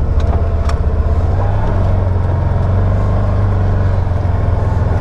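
Can-Am Maverick Sport 1000 side-by-side's Rotax V-twin engine running steadily as a low drone while the machine creeps along a trail.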